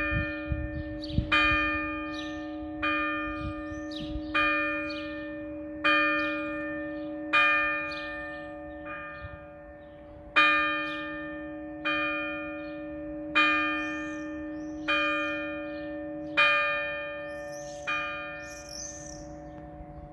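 A fixed church bell cast by Oberascher of Salzburg in 1962, strike note E-flat, struck by a hammer mechanism about every one and a half seconds, each stroke ringing on into the next. The strokes stop near the end and the ring fades out, while birds chirp.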